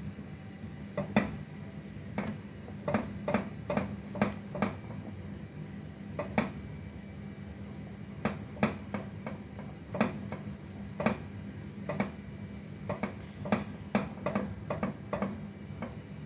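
Wire whisk beating a thin liquid mixture in a coated pan: irregular sharp clicks as the wires knock against the pan's rim and sides, over a steady low hum.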